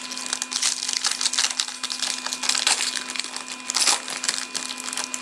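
A foil hockey card pack torn open and crinkled by hand: a dense run of crackling, loudest about four seconds in.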